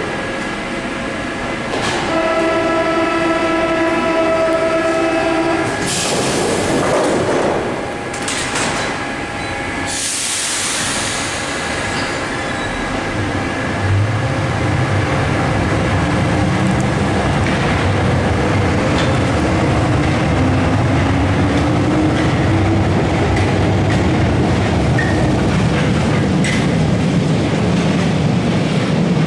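MF67C2 Paris metro train at a station: the door-closing warning buzzer sounds steadily for about three seconds, two sharp bursts follow as the doors shut, then the train pulls away with a rising motor whine and a heavy wheel rumble.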